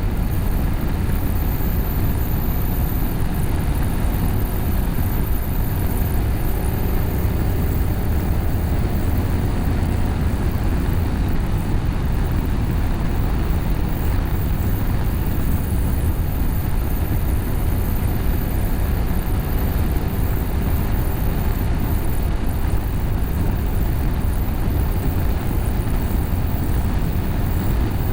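BMW F850GS parallel-twin engine running steadily at road speed through an Akrapovic slip-on exhaust with a cat bypass, heard from the moving motorcycle.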